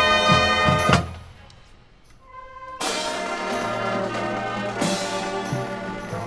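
Marching band brass and percussion playing loud accented hits that cut off abruptly about a second in. After a pause of nearly two seconds the brass comes back in with a loud sustained chord, with another accent near the five-second mark.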